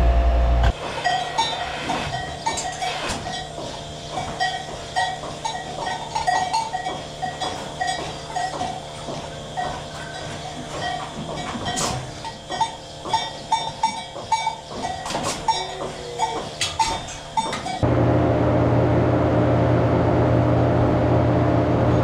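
Dairy barn sounds: scattered metallic clanks and short pitched clinks around cows in a tie-stall barn. The steady hum of milking-system machinery in the milk room breaks off under a second in and comes back about 18 s in.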